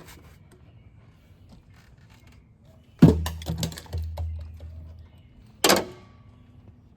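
A clamped hose or duct being pulled off and handled: a few faint clicks, then a sharp knock about three seconds in followed by a low rumble for about two seconds, and another sharp knock near the end.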